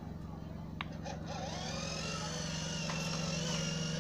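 Battery-powered electric motor and gearing of a homemade RC model farm vehicle running with a steady low hum. After a click just under a second in, a higher whine joins and rises slightly in pitch.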